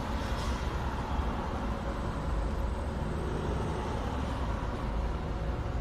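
Road and traffic noise in a moving car with its window open: a steady low rumble of the car and the traffic around it, which the rider calls a lot of car noise.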